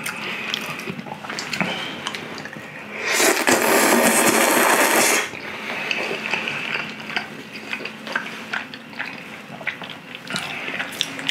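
A person slurps thick udon noodles in one long, loud slurp of about two seconds, a few seconds in. Around it are chewing and small clicks of chopsticks on the dish.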